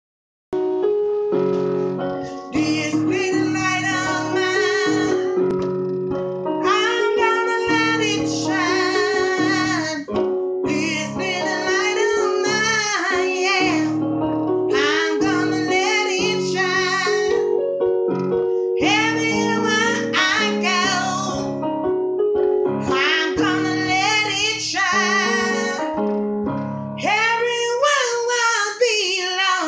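A woman singing gospel, her voice wavering with vibrato in phrases of a few seconds each, over chords she plays on an electronic keyboard. The keyboard and voice come in about half a second in.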